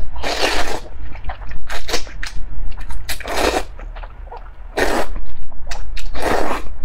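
Loud, close slurping of spicy fire-chicken instant noodles sucked into the mouth: about five long slurps with smaller wet mouth sounds between them.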